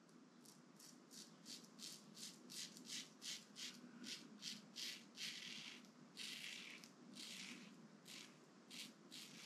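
Razorock Lupo stainless steel double-edge safety razor scraping through lathered two-day stubble. Short strokes come about two to three a second, with a few longer ones past the middle.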